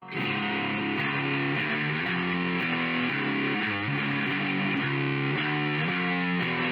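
Background music: guitar-led track with distorted electric guitar playing a chord progression at a steady level.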